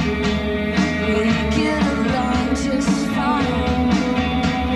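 A woman singing a slow melody over a live rock band, with drums hitting throughout.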